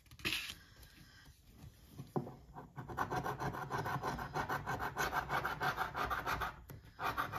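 A coin scratching the coating off a paper scratch-off lottery ticket on a wooden tabletop. After a brief knock near the start, it settles into rapid, even back-and-forth scraping strokes from about two seconds in.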